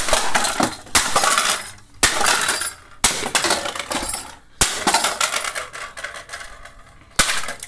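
A Belkin N750 wireless router's plastic casing being smashed on concrete: six heavy blows, the first four about a second apart, each followed by pieces clattering and rattling.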